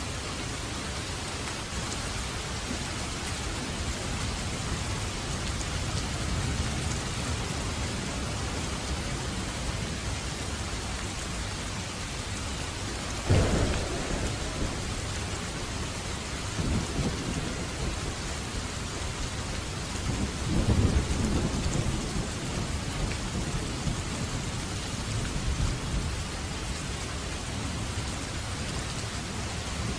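Steady rain with thunder: a sudden loud thunderclap about halfway through, followed by low rolling rumbles.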